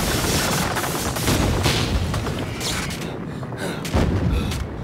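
Sound-effect explosions in an animated show: a dense string of blasts and crackling rumble as a control room blows up, easing briefly about three seconds in, then another heavy boom about four seconds in.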